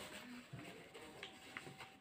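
Faint rustling and creasing of a sheet of paper being folded into a paper airplane and pressed flat on a wooden board, with a few light handling clicks and a soft thump about half a second in.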